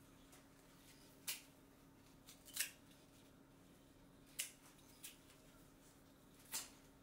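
Hand scissors snipping the fine hair roots off freshly harvested Asian ginseng roots: about five short, sharp snips at uneven intervals, over a faint steady hum.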